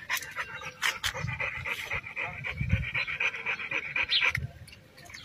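A dog panting hard with its tongue out, a quick, even run of breaths that breaks off shortly before the end.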